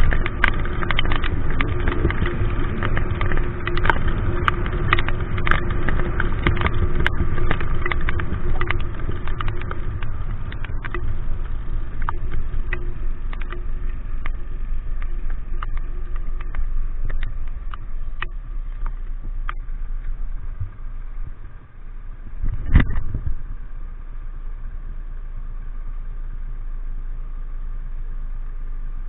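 Motorcycle engine running while riding in the rain, with rain and wind noise and many small ticks on the camera. One loud thump about 23 seconds in, after which the engine idles steadily and more quietly.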